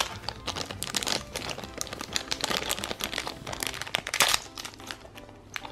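Thin clear plastic bag crinkling and crackling as it is handled, opened and a small plastic keychain is pulled out of it, in a rapid, uneven run of crackles.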